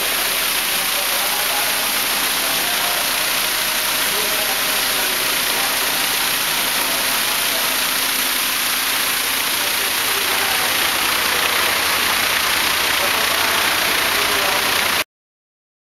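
Vegetable flume washer running: water pouring and splashing steadily over a mechanical hum from the machine's vibrating shaker motors. The sound cuts off suddenly near the end.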